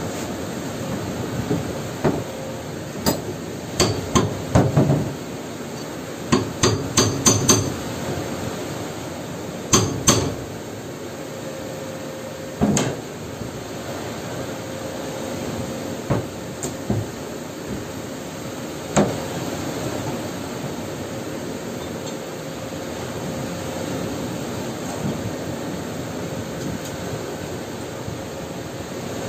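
Sharp metallic knocks and clinks from a hammer and hand tools on steel bracket parts. Quick bunches of strikes come in the first ten seconds, then single knocks every few seconds until about two-thirds of the way through. A steady faint hum and hiss run underneath.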